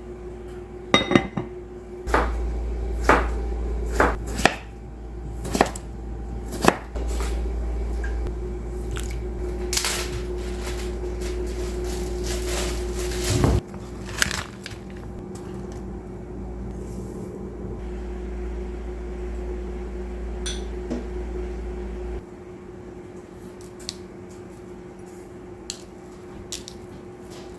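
Kitchen clatter: dishes and utensils knocking and clinking, busiest in the first half, over a steady low hum that stops about three quarters of the way through.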